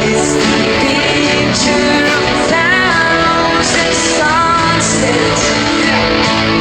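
Pop song with a guitar backing playing, with a voice singing the melody.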